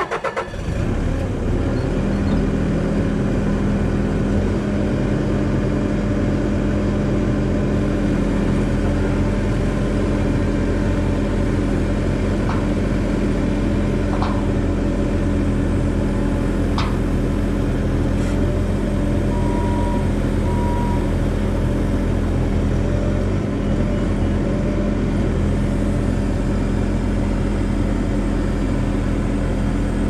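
Compact track loader's engine running at a steady speed as its boom attachment raises a steel rafter on a sling. A few faint clicks come midway, and two short beeps follow about two-thirds of the way through.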